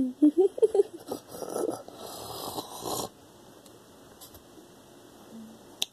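A young girl's put-on 'nerd laugh': short pitched laughing bursts over the first second, then breathy laughing until about three seconds in. After that it goes quiet, with one short click near the end.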